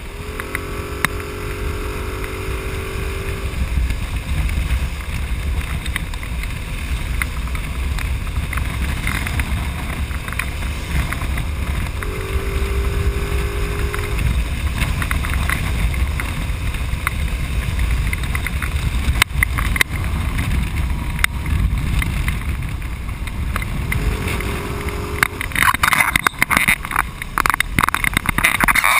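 Wind rushing over a motorcycle-mounted microphone at highway speed, with engine and road rumble underneath. A humming engine tone rises and fades three times. Near the end comes a run of loud, rapid crackles and rustles.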